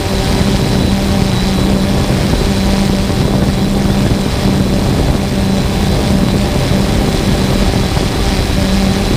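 3DR Solo quadcopter's electric motors and propellers running steadily in flight, heard from the camera carried on the drone. A loud steady hum with a low tone that wavers and briefly drops out now and then, over rushing air noise.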